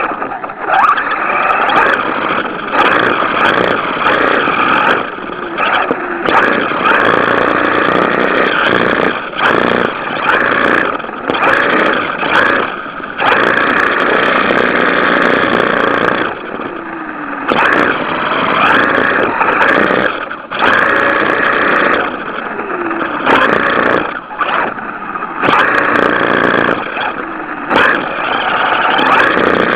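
Several RC cars' motors running and revving as they drift, pitch rising and falling with the throttle, with short breaks every second or two.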